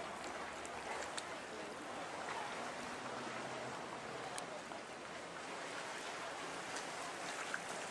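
Steady wash of small waves and lapping water in a shallow bay, with faint distant voices.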